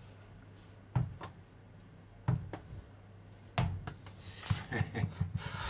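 Three sharp knocks, evenly spaced about a second and a quarter apart, over a steady low hum; near the end comes a quick run of short, softer sounds.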